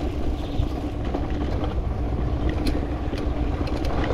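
Mountain bike riding over a wet dirt track and onto a brick path: a steady rumble of tyres and wind on the microphone, with light clicks and rattles in the second half.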